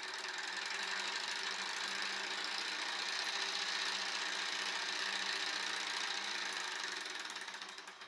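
Small tea-light-heated hot-air Stirling engine running fast, its piston, connecting rod and belt-driven LED generator making a steady, rapid mechanical whirr and clatter with a faint hum. The sound dies away near the end.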